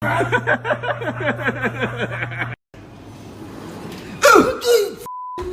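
People laughing in quick bursts, then a sudden startled cry falling in pitch about four seconds in. A short steady censor bleep follows near the end.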